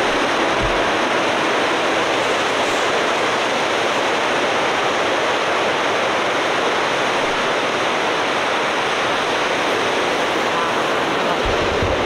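Ocean surf breaking on a rocky shore: a steady, loud rushing wash of waves.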